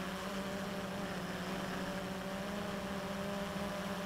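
XK X380 quadcopter's four motors and propellers humming steadily in a hover, a low even drone with fainter higher tones above it.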